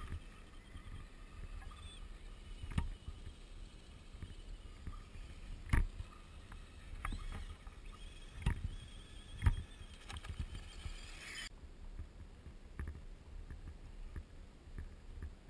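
Faint whine of RC scale 4x4 trucks' motors over a low rumble, broken by several sharp knocks; the whine cuts off suddenly about two-thirds of the way through.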